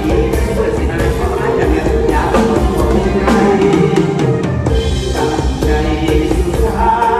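Live band music with a drum kit keeping a steady beat, and a man singing through a stage microphone over the PA.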